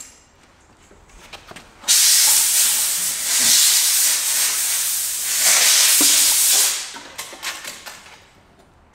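A long spraying hiss of pressurised air or gas, starting suddenly about two seconds in and lasting about five seconds. Light clicks and knocks of hand tools come before it and as it tails off.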